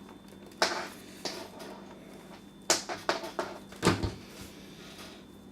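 Handling noise from a portable air compressor and its cords: a few sharp plastic clicks and knocks, with a louder knock and dull thump about four seconds in.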